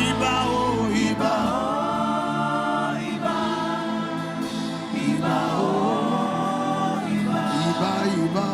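Gospel worship music: voices singing long, gliding held notes over sustained accompaniment.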